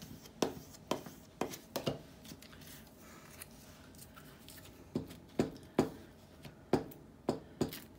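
Paper crafting at a desk: a series of sharp clicks and taps as paper scraps are pressed down with a small plastic scraper and the scraper and a glue stick are handled on a cutting mat. There is a cluster of taps at first, a quieter stretch of faint paper handling, then more taps from about five seconds in.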